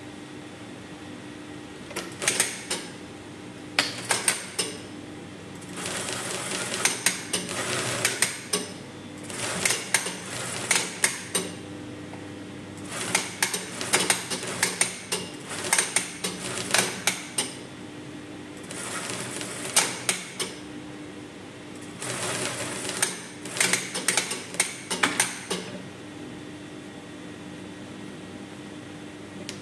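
Brother industrial single-needle sewing machine stitching shirt fabric in short runs, each lasting from under a second to several seconds, with sharp clicks as it starts and stops. The runs begin about two seconds in and end a few seconds before the close.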